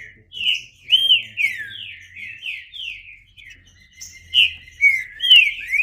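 Green-winged saltator (trinca-ferro) singing: a run of short, clear whistled notes, most sliding down in pitch, with a brief lull about midway and louder notes near the end.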